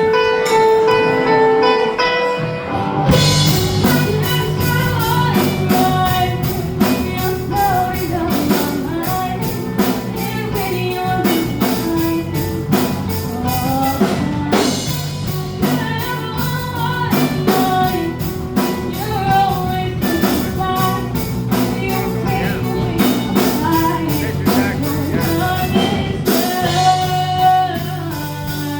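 A rock song: a guitar plays alone for about three seconds, then the drums and bass come in and a singer takes up the melody over the full band.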